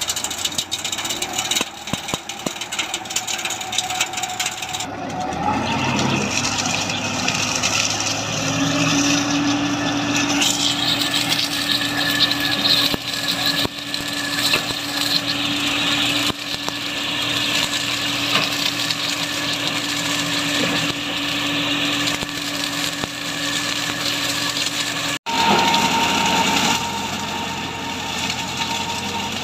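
Tractor-mounted sugarcane harvester at work: the tractor engine runs under load with a steady mechanical hum as the attachment cuts through standing cane. The sound changes abruptly about five seconds in and cuts out for an instant near the end.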